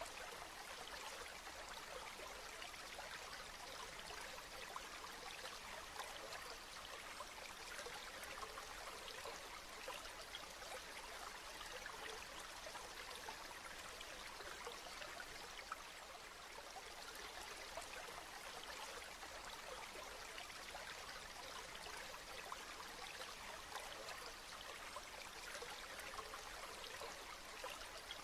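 Steady rain: an even hiss dotted with the patter of many individual drops, unchanging throughout.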